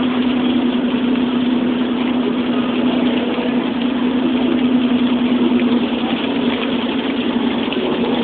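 Steady drone of a car's engine and road noise, heard from inside the moving car, with one constant low hum running under it.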